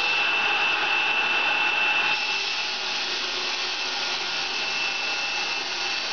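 Steady machine noise in a stone-processing workshop, with a thin high whine running through it; its tone shifts slightly about two seconds in.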